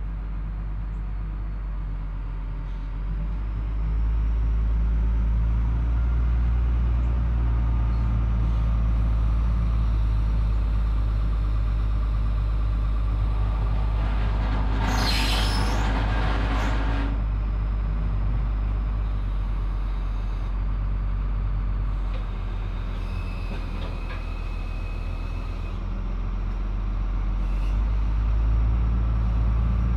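Diesel engine of a wheel loader running under load as it lifts a pickup truck on its forks, its rumble getting louder about four seconds in. A loud hiss lasts a couple of seconds about halfway through, and a thin steady whine sounds briefly later.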